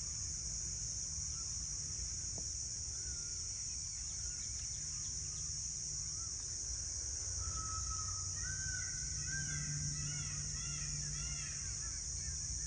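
Birds chirping: a few scattered calls at first, then many short rising-and-falling chirps overlapping from about halfway through. Under them runs a steady high-pitched hiss and a low rumble.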